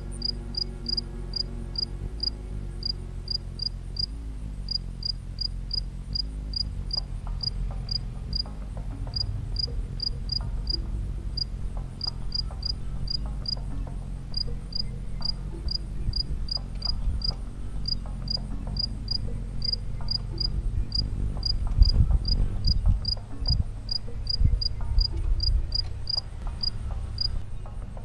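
A cricket chirping, short high chirps at about two a second, which stop just before the end. Under it runs a low rumble that swells briefly about three-quarters of the way through.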